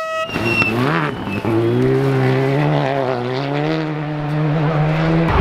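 Rally car engine revving up, its pitch climbing for about a second, then holding a steady, slightly wavering note for several seconds.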